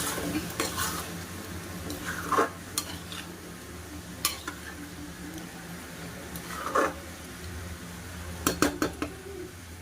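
A metal spoon stirring and scraping in a cooking pan of potato and soya chunk curry, with scattered clinks against the pan and a quick run of clanks near the end.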